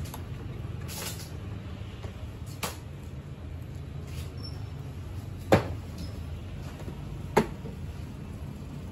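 Plastic knocks and clicks as the body and wheel parts of a children's electric ride-on motorbike are handled and fitted together, with two sharp knocks, the loudest, about five and a half and seven and a half seconds in. A steady low hum runs underneath.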